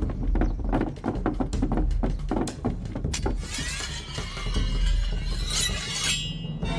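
A run of sharp, irregular clicks and knocks, then from about three seconds in a Japanese sword slid slowly out of its scabbard with a long, ringing metallic scrape that cuts off shortly before the end.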